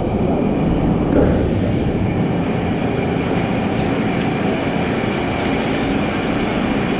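Steel roller coaster train (Valkyria, a B&M dive coaster) running along its track: a steady rumble of wheels on rail with a few light clacks.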